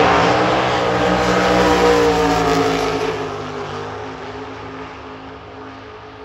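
Drag racing car's engine running hard, loud at first, then fading away over the second half as the car moves off down the strip.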